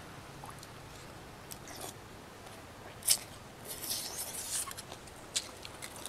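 A person quietly chewing a mouthful of beef noodle soup, with a few sharp clicks and a short cluster of wet mouth noises a little past the middle.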